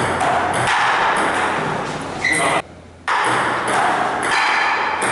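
Table-tennis rally: a plastic ping-pong ball clicking off the paddles and the table again and again. The sound cuts out briefly a little past halfway.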